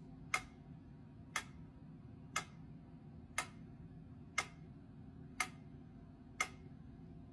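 Metronome ticking steadily at one click a second (60 beats per minute), with sharp, evenly spaced clicks over a faint low hum.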